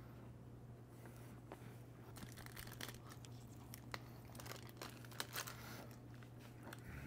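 Plastic snack-cake wrapper crinkling and being torn open, a run of faint crackles and clicks through the middle, over a steady low hum.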